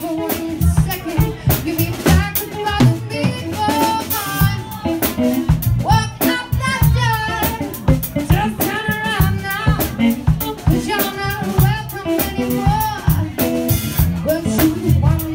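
A live band playing: a woman singing into a microphone over a drum kit keeping a steady beat with cymbal hits.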